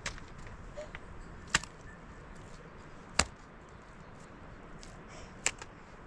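Three sharp knocks of hard objects struck together, about one and a half to two seconds apart, with a few fainter ticks between.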